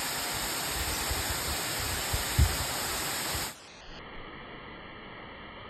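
Waterfall rushing steadily over rock, with a brief low thump about two and a half seconds in. About three and a half seconds in the sound drops suddenly to a much quieter, duller hiss.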